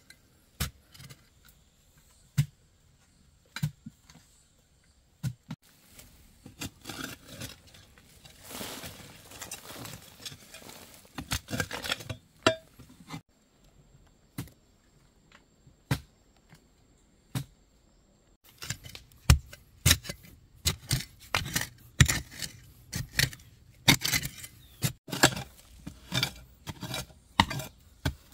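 Metal blade of a long-handled digging hoe chopping and scraping into stony soil at the base of a rock, in irregular strikes with clinks of metal on stone. The strikes stop for a few seconds about halfway, then come back fast and close together.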